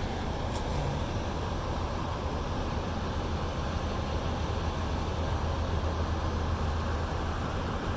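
Steady low rumble of a vehicle engine running, with an even outdoor noise haze.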